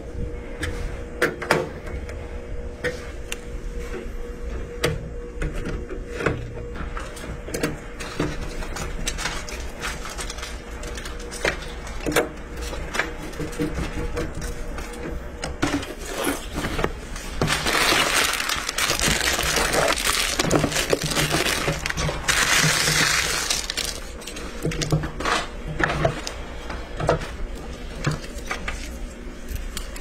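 Handling noise from a PC build: scattered clicks and knocks of a screwdriver and parts against a metal PC case. A little past the middle, paper and cardboard packaging rustles loudly twice, for a few seconds each time, as a box is opened.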